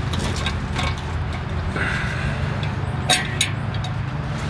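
Light metal clinks and a brief scrape as a Flowmaster muffler and its 3-inch exhaust clamp are handled and worked onto the exhaust pipe, with two sharp clinks a little after three seconds, over a steady low hum.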